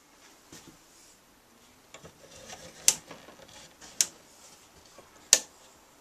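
Hands fitting a rubber drive band over the pulleys of a small wooden automaton mechanism: soft handling taps and rubs, then three sharp snaps, about a second apart, in the second half.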